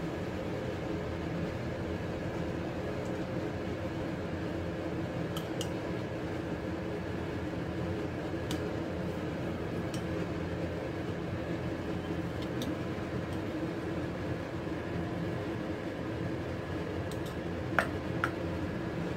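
Steel spoon clinking lightly against a glass bowl while beaten egg mixture is stirred and spooned out, with two sharper clinks near the end, over a steady background hum.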